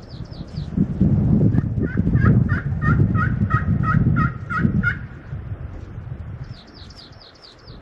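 Turkey yelping: a run of about nine evenly spaced yelps, roughly three a second, over a low rumble of wind or handling noise on the microphone. A small bird twitters in a quick high trill at the start and again near the end.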